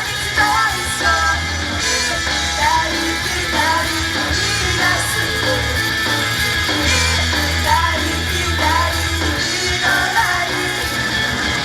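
Loud rock-style idol pop song with sung vocals over a driving band track.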